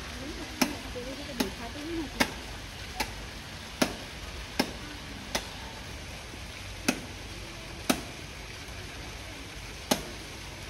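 A series of about ten sharp knocks or clicks, mostly evenly spaced a little under a second apart, with a few longer gaps in the second half.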